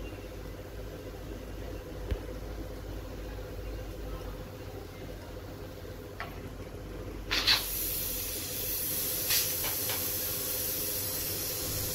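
Aluminium pressure cooker letting off its remaining steam: the weight is lifted off the centre vent about seven seconds in, and a loud, steady hiss of steam starts suddenly from the open vent. The pressure is being let out so the lid can be opened after cooking.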